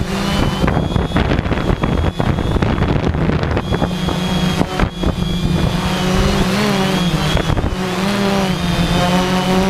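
3D Robotics IRIS quadcopter's electric motors and propellers buzzing in flight, a steady hum whose pitch wavers. Gusts of wind buffet the microphone.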